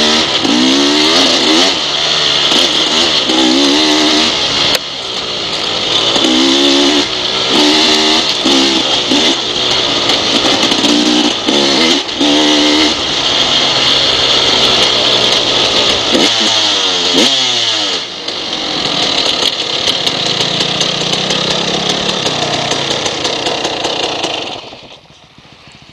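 Dirt bike engine under way on a trail, revving up and easing off over and over as the rider works through the gears. The sound fades out near the end.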